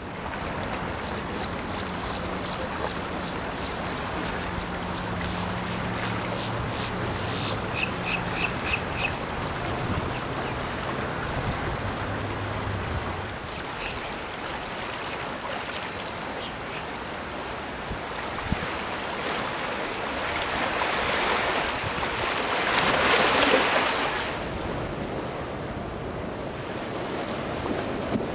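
Boat engines running through the inlet over steady surf and wind noise; the low engine hum fades out about thirteen seconds in. A quick run of short high beeps comes about eight seconds in, and a louder rush of water and wind swells up and falls away near the end.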